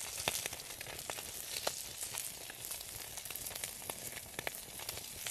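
Whole brown trout sizzling steadily in oil in a pan over a campfire, with frequent sharp pops and crackles.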